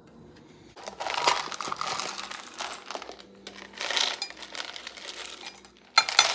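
Chocolate chips pouring from a plastic tub into a metal measuring cup and spilling into a glass jug: a dry, rattling patter of many small pieces. It starts about a second in, comes in two long pours, and ends with a sharper clatter near the end.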